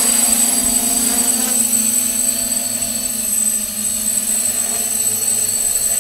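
Hexacopter's six electric motors and propellers humming steadily in flight overhead, the hum easing slightly about halfway through. A thin, steady high-pitched whine sits above it.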